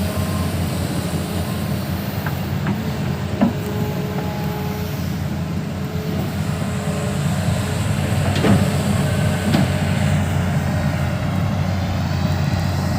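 Heavy diesel engine of a Hitachi 210 excavator running steadily, with several sharp metallic knocks over it, the loudest about eight and a half seconds in.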